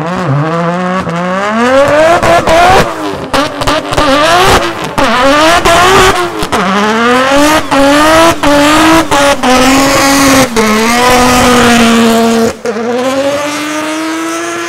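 Modified Nissan Skyline's engine revving hard through a burnout, its pitch climbing again and again and breaking off sharply, while the rear tyres spin and squeal. It holds at high revs for a couple of seconds, drops about twelve and a half seconds in, then climbs and holds again.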